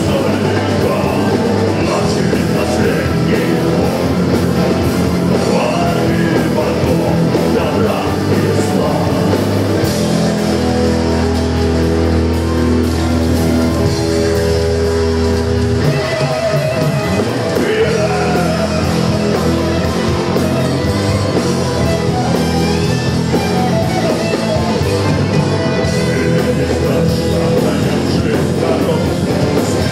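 Live gothic metal band playing loud: distorted electric guitar, drum kit and keyboard, with singing. In the middle the band holds long sustained chords for several seconds with fewer drum hits, then the full beat comes back in.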